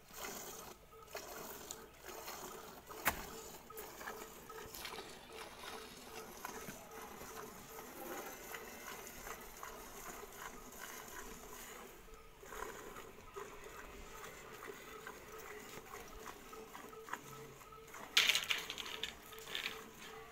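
Milk squirting into a steel pail in a steady rhythm as a cow is milked by hand. A single sharp click about three seconds in, and a louder rustling burst near the end.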